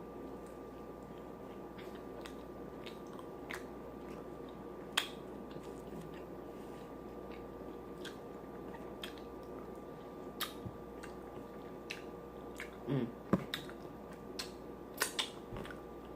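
A person chewing sauce-dipped chicken close to the microphone: wet smacking and scattered lip and tongue clicks. A brief voiced sound comes about three-quarters of the way through.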